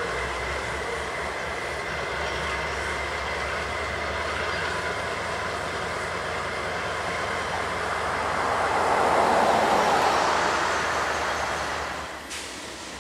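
A slow-moving ore train worked by a pair of GE AC4400CW diesel locomotives: a steady diesel rumble with wheel and car noise, and a faint thin high tone above it. The sound swells about two-thirds of the way through, then drops off suddenly near the end.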